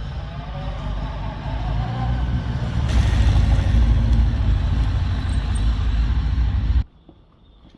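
Thirty-year-old four-cylinder motorcycle running through its stock muffler while being ridden. The engine note rises during the first couple of seconds, grows louder from about three seconds in, then cuts off suddenly near the end.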